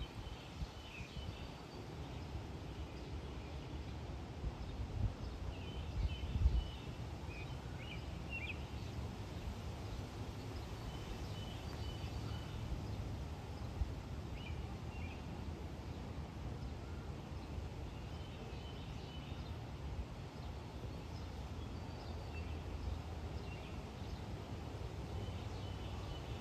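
Small birds chirping and twittering in short calls every few seconds over a steady low rumble, with a few low thumps about six seconds in.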